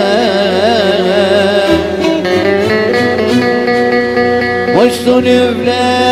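Turkish folk song played on electric bağlama with keyboard (org) accompaniment: a wavering melody line gives way to steadier held notes, with a quick upward slide about five seconds in.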